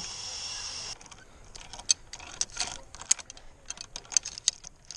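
A steady hiss that stops abruptly about a second in, then irregular sharp metallic clicks and clacks of climbing gear such as carabiners and lanyard hardware being handled.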